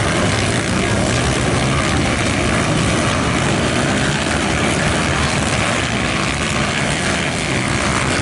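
Motocross dirt bikes racing on a dirt track, their engines making a steady, loud drone with no let-up.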